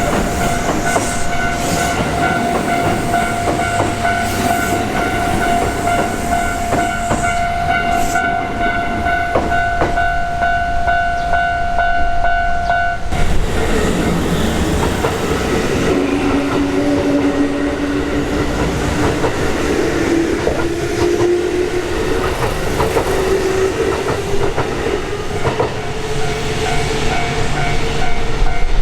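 A Japanese level-crossing warning bell rings while a Kintetsu electric train passes with wheel clatter. The bell cuts off about halfway through. Then the motor whine of an electric train rises slowly in pitch as it accelerates, and the crossing bell starts again near the end.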